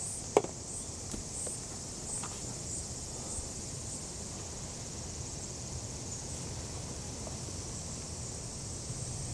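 Insects chirping steadily in a high, pulsing chorus, about one and a half pulses a second, over a low outdoor hiss. A single sharp click about half a second in.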